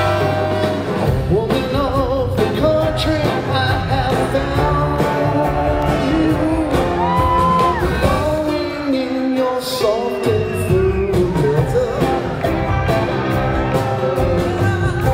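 Live rock band playing with singing: electric guitars, drums, keyboards and a horn section, heard from the audience in a large hall.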